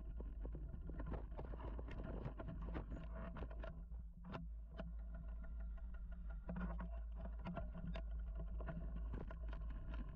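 Mountain bike riding over a dirt singletrack: a steady low rumble with frequent quick clicks and rattles from the bike over bumps, easing briefly about four seconds in.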